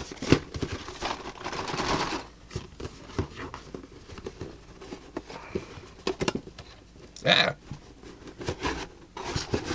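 A cardboard model-kit box being handled while its tight-fitting lid is worked off the tray: scattered light taps and knocks, with a longer sliding rasp of cardboard between about one and two seconds in.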